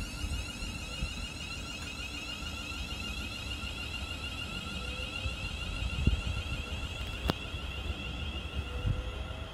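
Class 350 Desiro electric multiple unit pulling away from the platform: a steady, wavering high electrical whine over a low rumble, with a couple of short knocks about six and seven seconds in.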